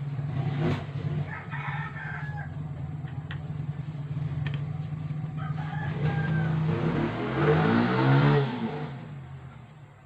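A rooster crowing, loudest about seven to nine seconds in, over a steady low hum.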